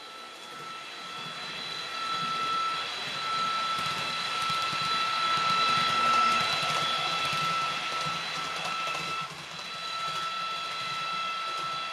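PIKO H0-scale ICE 4 model train running past with a steady high electric whine over rolling noise on the track. It grows louder to about halfway through, then fades.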